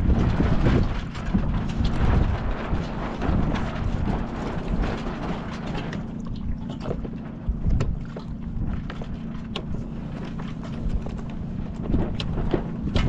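Wind buffeting the microphone on a sailboat, heaviest in the first half, over a steady low hum, with scattered clicks and knocks.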